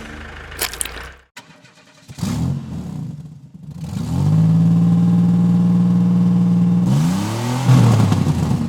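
A vehicle engine running at a steady pitch, then rising in pitch as it revs near the end.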